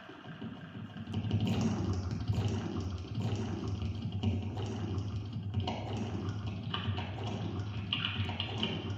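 Experimental live electronic music: a dense, crackling noise texture over a steady low hum, which gets louder about a second in.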